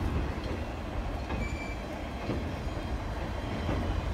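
Passenger train cars rolling across a steel girder bridge: a steady low rumble of wheels on the rails, with a short high squeak about a second and a half in.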